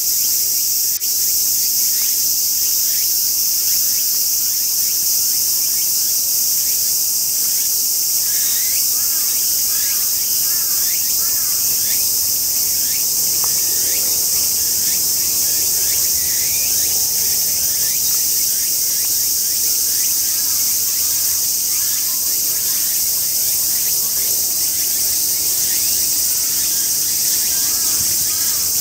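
A dense chorus of cicadas in the trees: a steady, loud, high-pitched drone. Short bird chirps come over it now and then, with a quick run of them about nine seconds in.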